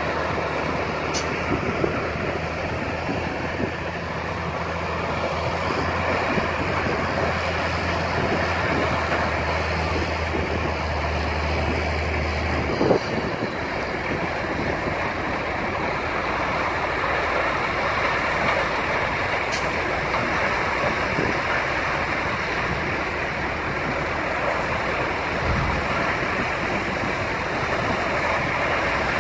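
Combine harvester with a corn header running steadily while harvesting maize, a constant mechanical drone. A low hum underneath stops suddenly about 13 seconds in.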